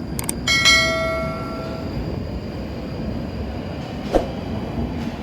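Electric commuter train running at a station platform, a steady rumble throughout. About half a second in, a short ringing tone sounds and fades over about a second; there is a sharp click near the end.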